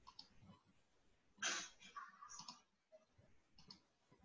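Faint computer mouse clicks, with a brief louder rush of noise about a second and a half in.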